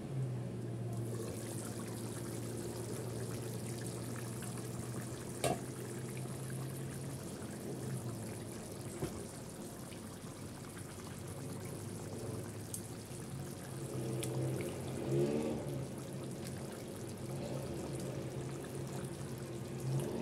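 Pan of beef curry with potatoes and carrots simmering on a gas burner: a steady, watery bubbling hiss over a steady low hum. A single sharp clink comes about five seconds in.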